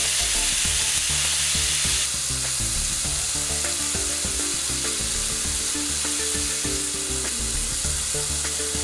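Marinated chicken breasts sizzling steadily in a very hot, oiled ridged grill pan, a dense crackling hiss that drops a little in level about two seconds in. Soft background music plays underneath.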